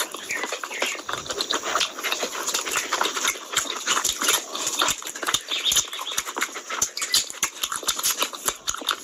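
Close-miked eating: wet chewing and lip-smacking of mouthfuls of curry-soaked rice eaten by hand, a rapid, irregular run of moist clicks and smacks.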